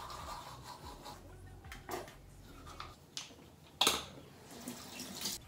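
Toothbrushing, a soft scrubbing for about the first second, then a few short clicks and knocks as things are handled at a bathroom basin, the loudest a sharp knock about four seconds in.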